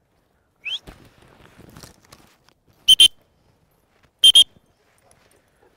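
Dogs at play: a short rising squeal, then two quick pairs of sharp, high-pitched squeaks about a second and a half apart.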